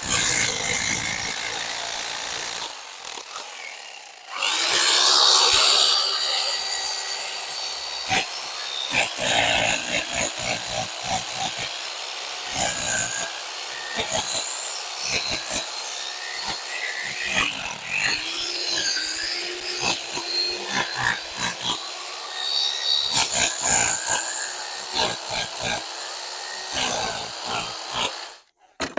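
A power tool runs under load against a concrete-set stone wall, its motor pitch dipping and recovering. Irregular knocks and clatter of stone and mortar sound throughout, and the tool stops suddenly near the end.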